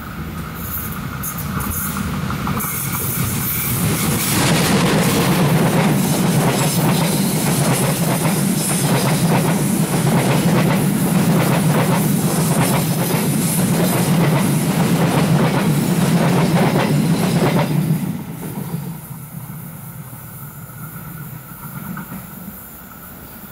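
Indonesian diesel-electric locomotive and passenger train passing close by. The engine's drone grows over the first few seconds, then the coaches go by loud and steady with rapid clickety-clack from the wheels on the rail joints. The noise drops sharply about eighteen seconds in.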